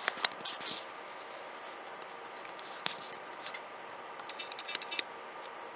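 A few scattered, sharp clicks of a computer mouse over a faint steady hum, with a small run of clicks near the end.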